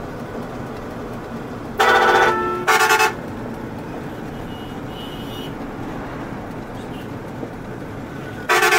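Truck horn blown twice in quick succession about two seconds in, the second blast broken into short pulses, then once more near the end. Under it the truck runs steadily with road noise.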